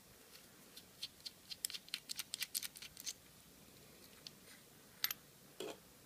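Faint, sharp little metal clicks and ticks from a small screwdriver, tiny screws and brass lock cores being handled while aluminium padlocks are taken apart. The clicks come in a quick run for about two seconds, then two single clicks near the end.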